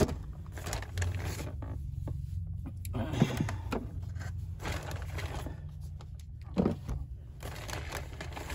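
Groceries being packed into a chest fridge: bags rustling and two knocks as items are set into its wire basket, over a steady low hum.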